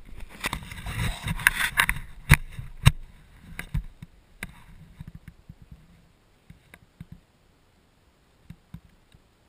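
Scraping and shifting on snow with a few sharp knocks, from a seated snowboarder handling his board and bindings. It dies down after about four seconds to scattered faint clicks.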